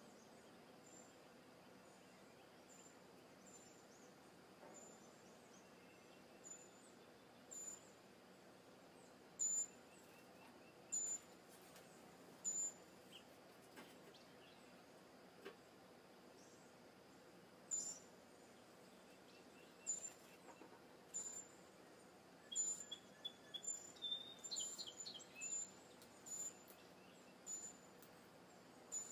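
Songbird calls outdoors: short, high chirps repeating every second or two over a faint steady background hiss, coming more often in the second half, with a quick run of lower notes about three quarters of the way in.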